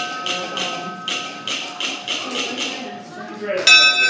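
Locomotive bell ringing in a steady run of strokes, about three a second, with a louder stroke near the end.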